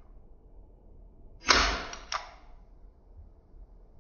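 Marushin M36 airsoft revolver firing one shot about a second and a half in, with a second sharp click about half a second later.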